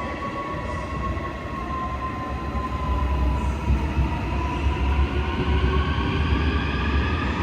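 Subway train in the tunnel: a drawn-out, ghost-like whine slowly falling in pitch, over a low rumble that grows louder about three seconds in.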